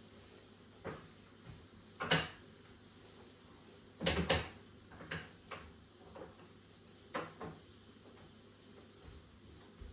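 Kitchen items clattering as they are picked up and set down on a countertop and gas hob during cleaning: a string of separate knocks and clinks, the loudest a cluster about four seconds in.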